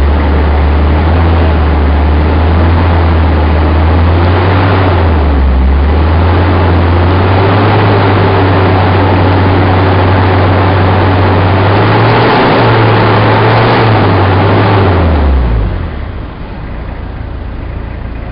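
Toyota Tamaraw FX diesel engine revved and held at raised revs for a smoke test, its note climbing in steps and then dropping back to idle about fifteen seconds in.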